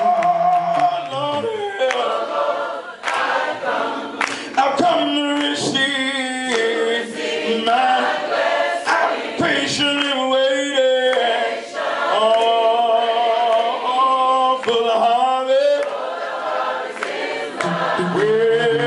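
Gospel choir singing, with long held, wavering notes.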